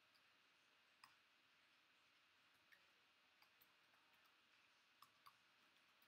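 Near silence with about six faint, sharp clicks scattered through it.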